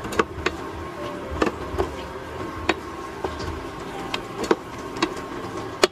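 Plastic spatula stirring a thick sauce in a nonstick frying pan, knocking and scraping against the pan in irregular sharp clicks.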